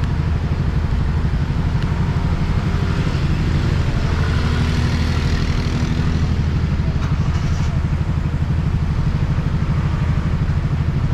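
Yamaha XSR155's single-cylinder engine idling steadily, with a fast, even pulse. About halfway through, another motorcycle's engine passes close alongside.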